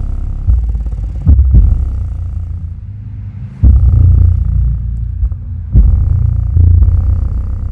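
JBL 1200-watt subwoofer playing loud, deep bass in hard pulses, driven hard by a Class D amplifier under a torture test; the bass eases off for a moment and comes back strongly about three and a half seconds in.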